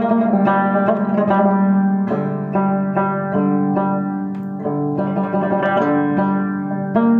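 Background music: a plucked string instrument picking out a quick melody of sharply struck notes over a held low note.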